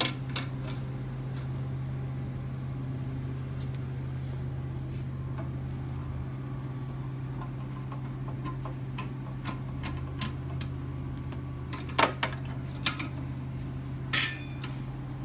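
Steady low electric hum of a running LCD laminating and bubble-removing machine. A deeper layer of the hum stops for a few seconds partway through and then returns. Several sharp clicks and knocks come near the end.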